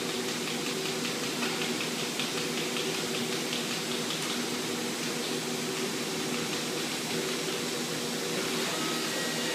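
Steady hum and hiss of machinery in a robotic welding cell, with several low steady tones under an even rushing noise.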